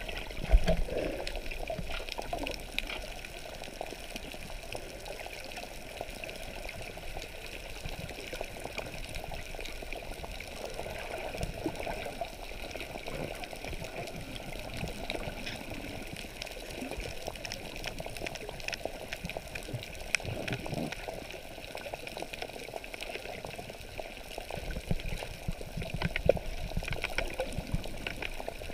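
Underwater sound heard by a submerged camera: a steady wash of water noise with frequent small crackles and bubbling, and a few louder knocks, one about half a second in.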